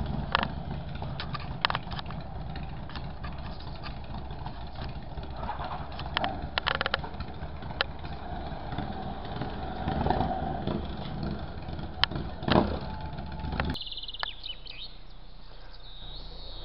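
Motorcycle engines running at a steady low rumble, with scattered clicks. The rumble stops abruptly about three-quarters of the way through, leaving quieter background with a few high chirps.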